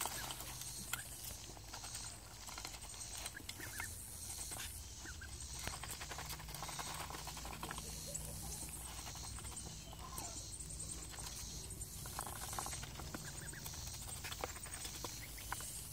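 Domestic ducks feeding from a metal pan of dry feed: a steady stream of small clicks and taps from their bills dabbling in the crumbles and knocking on the pan.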